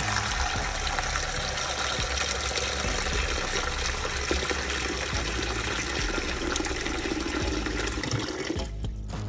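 Tap water running steadily into a stainless steel bowl of turkey leg, onions and herbs, filling it for a brine. The rush briefly drops away a little before the end.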